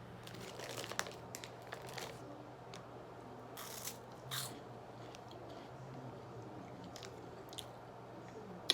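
Close-miked chewing and biting of food, with scattered soft crunches and mouth clicks.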